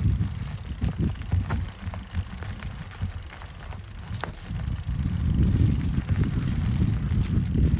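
Mountain bike ridden over a trail: wind rumbling on the microphone, with tyre noise and scattered clicks and rattles from the bike. It swells louder over the last few seconds.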